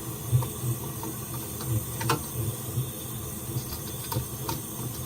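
Soldering torch flame running with a steady low, fluttering rumble, while the copper pipe and fitting give a few light metallic clicks and taps as they are handled. The sharpest click comes about two seconds in.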